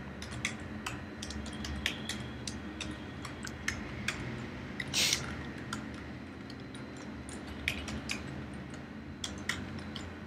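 Typing on a computer keyboard: scattered, irregular key clicks, with one brief, louder rush of noise about halfway through, over a low steady hum.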